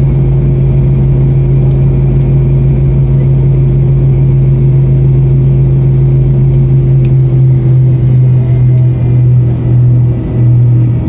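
Cabin noise of an MD-82's rear-mounted Pratt & Whitney JT8D turbofan engines, heard from a seat near the tail as the airliner taxis: a loud, steady low drone with a steady hum above it, dipping briefly a couple of times near the end.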